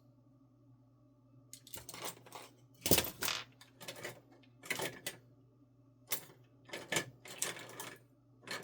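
Small metal tools and parts clattering and clinking in a dozen or so irregular bursts as they are rummaged through by hand, over a faint steady hum.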